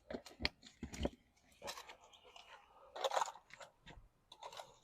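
Handling noises: a run of sharp clicks and knocks, then a short crunching rustle about three seconds in, with a few more clicks near the end. This is typical of a battery being set onto its charger and packaging being handled.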